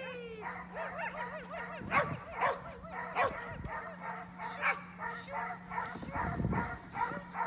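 Dog barking in rapid, high-pitched yips, several a second, repeatedly.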